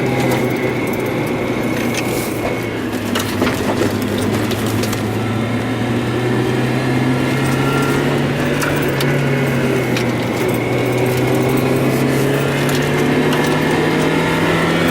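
Mazda Miata's four-cylinder engine running with a steady drone; its pitch sags about three to four seconds in and climbs back, with scattered sharp clicks. The engine has a stumble and misfire.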